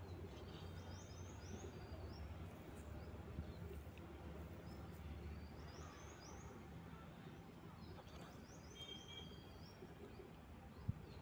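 Faint birds chirping in short, repeated calls over a low steady hum, with one short tap near the end.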